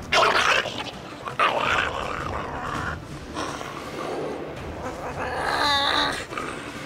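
A Shiba Inu snarling and crying out as it fights against the leash, a sign of its aggression at being restrained. There are two sharp outbursts in the first two seconds, then a long wavering high-pitched cry near the end.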